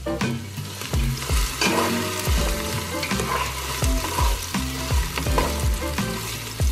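Diced onion and garlic sizzling and frying in cooking oil in a large soup pot, with background music and a regular low beat underneath.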